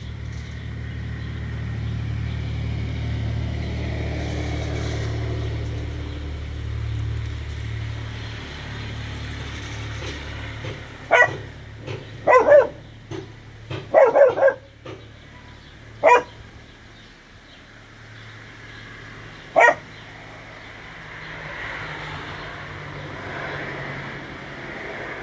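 A dog giving a run of short, sharp sounds: a cluster of quick ones about halfway through, then two more spaced a few seconds apart. Under the first half runs a low steady rumble that fades out.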